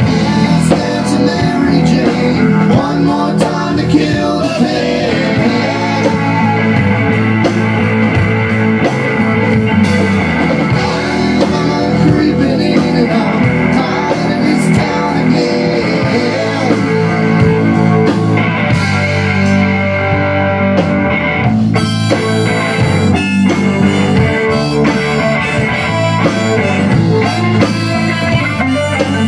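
A live rock-blues band playing: electric bass, electric guitar and a drum kit, with a man singing. A harmonica comes in near the end.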